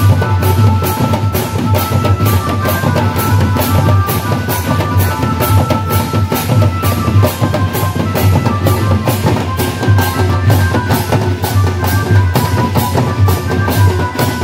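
Live folk band playing: a two-headed barrel drum, a basket-bodied kettle drum and hand cymbals keep a fast, steady beat under a high melody line.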